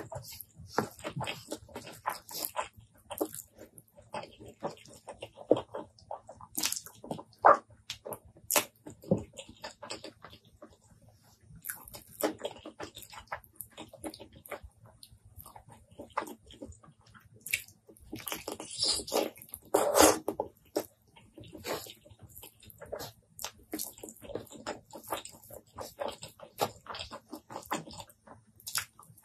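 Close-miked eating: fingers squishing and mixing rice with curry gravy, with wet chewing and lip-smacking as handfuls go to the mouth, in irregular sticky clicks and squelches. A denser, louder flurry comes about two-thirds through.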